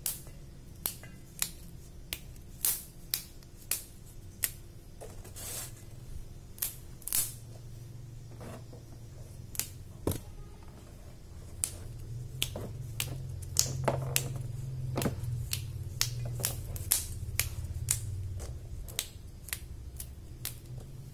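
Fresh yardlong beans snapped into short pieces by hand: a string of sharp, crisp snaps at irregular intervals, about one or two a second, over a low steady hum.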